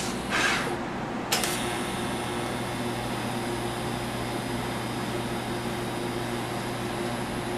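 TIG welder arc striking with a sharp crackle a little over a second in, then a steady hiss over a constant electrical hum as a fillet weld is built up on a steel shifter stick and bushing.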